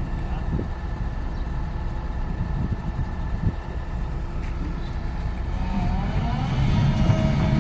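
Heavy diesel engine running steadily, picking up and growing louder near the end with a whine over it.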